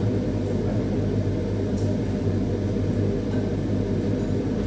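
Steady low hum and rumble, level and unbroken, like a running motor or fan.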